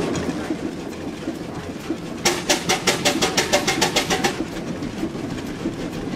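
Vintage stationary diesel engine running with a steady low rumble, and for about two seconds in the middle a sharp rhythmic clatter of about eight beats a second.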